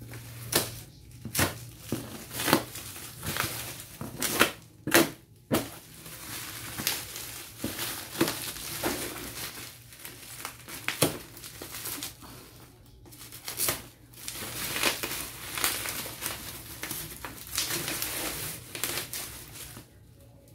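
Plastic bubble wrap crinkling and crackling as it is cut open with a knife and pulled away from a cardboard box, with irregular sharp snaps.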